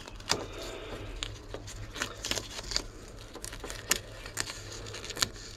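Duct tape being handled and pressed down onto a boat hull by nitrile-gloved hands: scattered crinkles and small clicks over a low steady hum.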